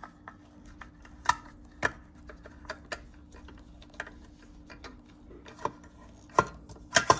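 Irregular clicks and taps of a small screwdriver and hand working the hard plastic parts of a pet treat popper toy while it is reassembled, with a few sharper knocks about a second in and a quick cluster of them near the end.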